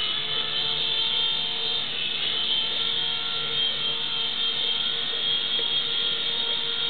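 Micro indoor RC helicopter's small electric motors and rotors running with a steady high-pitched whine.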